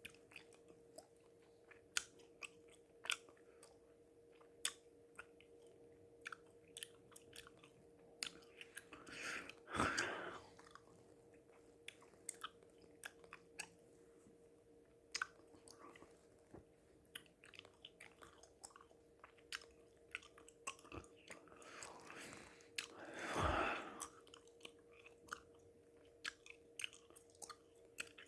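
Close-miked chewing gum: wet mouth clicks and smacks, irregular and frequent. Two heavy, drawn-out breaths stand out as the loudest sounds, about ten seconds in and again about twenty-three seconds in.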